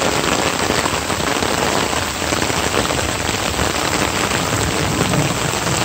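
Heavy rain falling steadily, a dense, even hiss of downpour.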